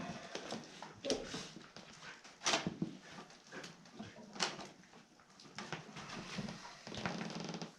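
A dog whining and whimpering in short, broken calls, with a few sharp knocks in between.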